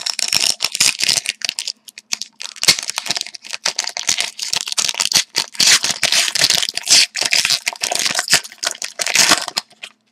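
Wrapper of a hockey card pack being torn open and crinkled close to the microphone: a dense run of crackling and tearing with many sharp snaps that stops just before the end.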